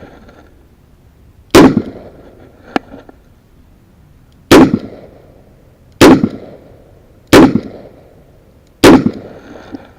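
Five loud revolver shots from a Smith & Wesson Model 66-8, fired one at a time with pauses of about one and a half to three seconds between them, plus one much fainter crack about a second after the first shot.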